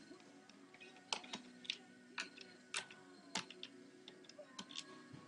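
Light, irregular clicks and taps of a screwdriver and small screws being taken out of a laptop's plastic case, about eight in all.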